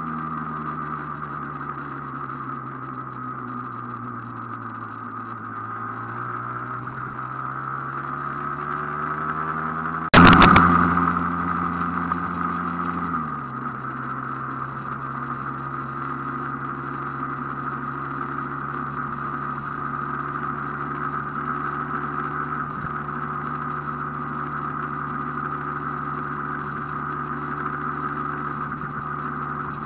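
Aprilia AF1 two-stroke motorcycle engine under way: the engine note falls as the bike slows, then rises again. About ten seconds in a sudden loud rush of noise breaks in and lasts about three seconds, after which the engine runs at a steady pitch.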